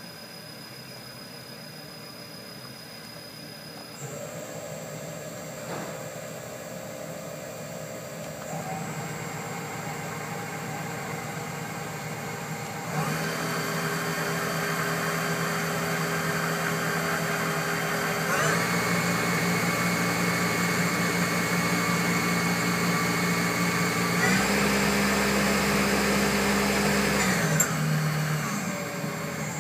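Omni Turn GT-75 CNC gang tool lathe's spindle running with a steady whine. It steps up in several stages, each louder with a changed set of tones, then winds down near the end.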